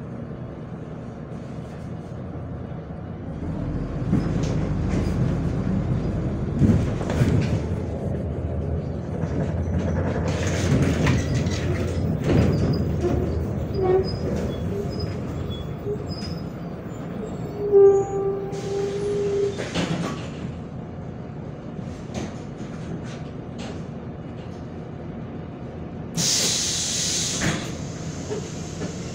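Inside a MAZ 105 city bus on the move: the engine and running gear grow louder for a while and then ease off. A short beep comes about two-thirds of the way through, and a sharp hiss about three seconds long comes near the end.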